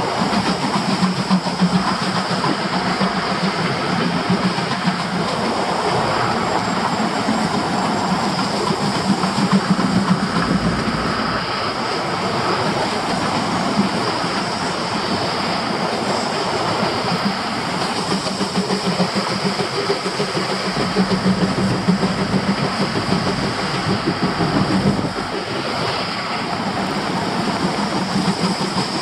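Steam locomotive C11 325 and its coaches running at speed on the track beside the road, a steady train running noise with some rail clatter. It is mixed with the tyre and engine noise of a Mitsubishi Lancer Evolution IX MR driving alongside.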